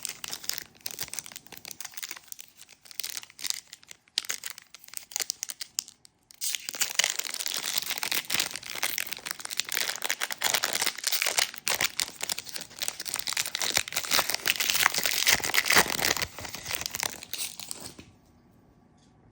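Wrapper of a 2020 WNBA Prizm trading-card pack crinkling as it is handled and torn open. The crackling comes in scattered bits at first, turns steady and loud from about six seconds in, and stops shortly before the end.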